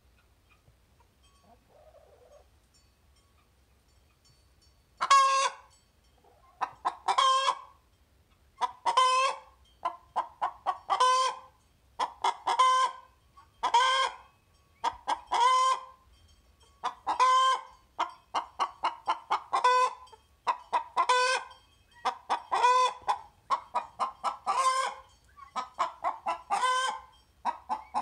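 A hen singing the egg song, the loud cackle that announces a freshly laid egg: repeated bouts of quick short clucks, each ending in a drawn-out squawk, about one bout every couple of seconds. It begins about five seconds in.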